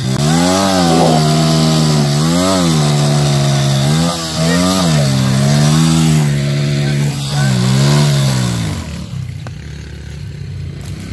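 Dirt bike engine revving in repeated swells, its pitch rising and falling four or five times, then dropping quieter near the end.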